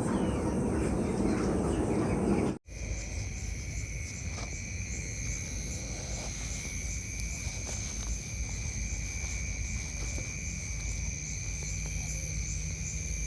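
Insects trilling steadily at night-chorus pitch, two high continuous tones with a faint regular pulse. They follow a loud rumbling noise that cuts off abruptly about two and a half seconds in.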